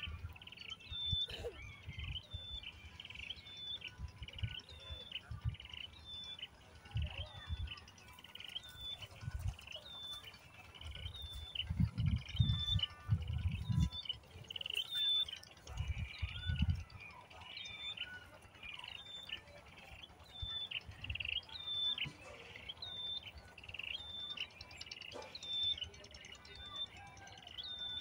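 Sparrow chirping over and over in short, even chirps, about one and a half a second, with low rumbles now and then beneath.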